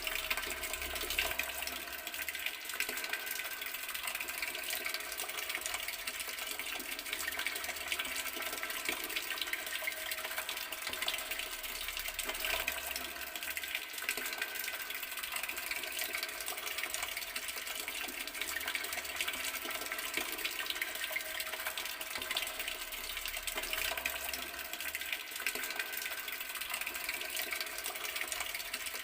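Garden water tap running, with water flowing and splashing steadily and without a break.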